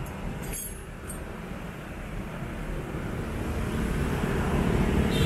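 Low rumble of motor traffic that builds steadily louder as a vehicle draws near, with a couple of faint short clicks near the start.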